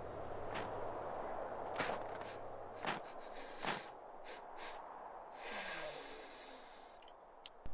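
Nasal sniffing performed for a cartoon polar bear smelling the air: short, sharp sniffs about a second apart, then one longer drawn-in sniff about five and a half seconds in. A low background bed fades out about three seconds in.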